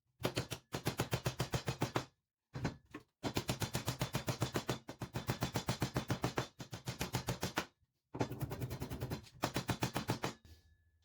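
Hammer driving nails into the wooden walls of a beehive super box: rapid, evenly spaced strikes, about seven a second, in runs of one to two seconds broken by sudden dead silences.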